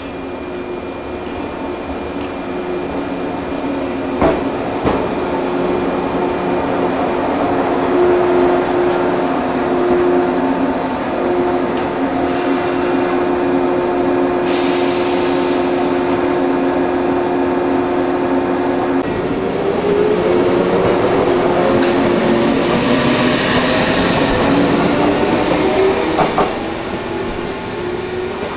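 JR 115 series electric train at a station, humming steadily, with two short bursts of air hiss about halfway through. About two-thirds of the way in, a whine rising in pitch sets in as the train pulls away.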